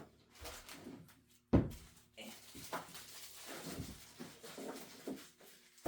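Rummaging: irregular knocks, clatter and rustling of tools and objects being moved about and set down, with a sharp knock about a second and a half in.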